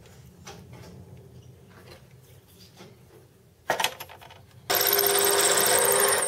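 Small metal lathe drilling a 6 mm pilot hole into a V-pulley blank with a drill held in the tailstock chuck. Low machine hum at first, a sudden clatter a little under four seconds in, then about a second later a loud, harsh, high-pitched ringing that holds to the end.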